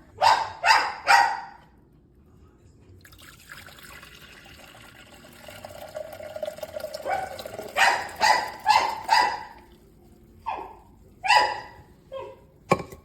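A dog barking in short, sharp yaps: three quick barks, a run of four a few seconds later, then a few scattered ones. In the middle of the stretch, between the bursts, there is a steady hiss lasting a few seconds.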